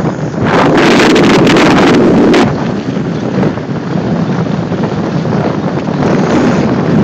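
Wind buffeting the microphone of a camera carried at speed down a ski slope, a steady rushing noise. It grows louder and harsher from about half a second in to about two and a half seconds in.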